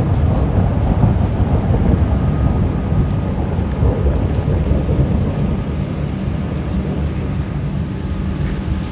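Rain falling over a continuous low rumble, with faint scattered ticks on top.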